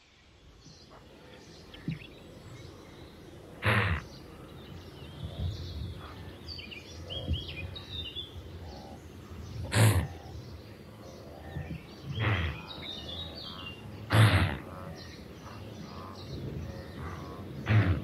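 Open-air ambience with small birds chirping faintly now and then, broken about five times by a loud, short rush of noise.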